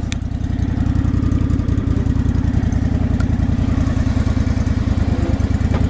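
Old Craftsman riding lawn tractor's engine running steadily with a fast, even firing beat as the tractor is driven along.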